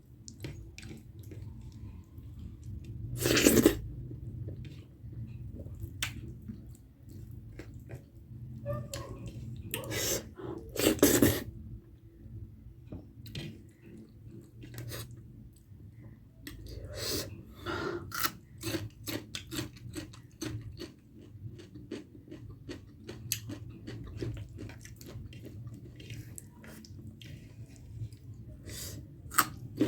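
Close-miked eating: steady chewing with crunchy bites and small wet mouth clicks, louder about three seconds in and again around ten to eleven seconds in.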